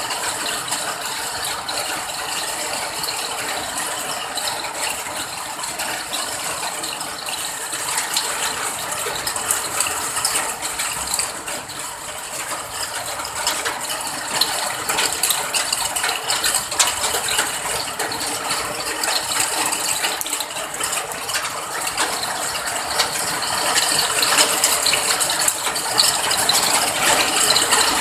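Steady rain falling, a dense patter of many small drops, growing a little louder near the end.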